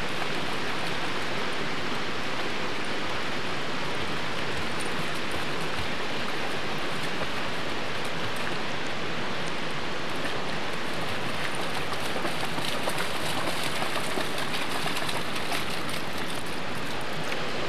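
Steady rush of a shallow creek's water, with a dog wading and splashing through the shallows.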